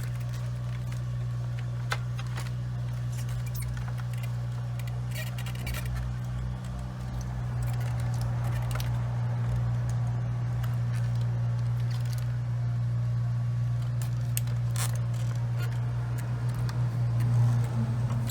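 Scattered small clicks and scrapes of hands working tight plastic connectors off fuel pumps, over a steady low hum.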